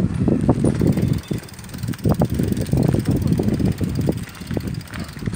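Wind buffeting a handheld phone's microphone, a low rumble in uneven gusts.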